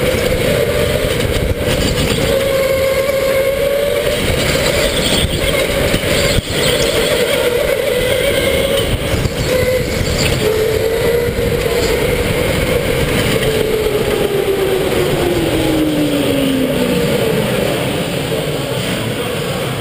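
Onboard sound of an electric go-kart at racing speed: a steady motor whine over rumble and rattle from the chassis. The whine slides down in pitch about two-thirds of the way through as the kart slows.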